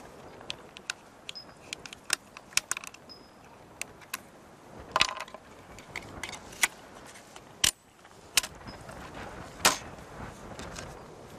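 Irregular metallic clicks and clacks as the magazine-feed parts of a Stoner 86 (ARES LMG-1) light machine gun are handled and latched into its receiver. The sharpest clacks come about five seconds in and again just before ten seconds.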